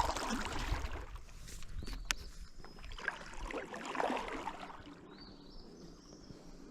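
Water lapping and sloshing against a small boat's hull, with a single sharp knock about two seconds in.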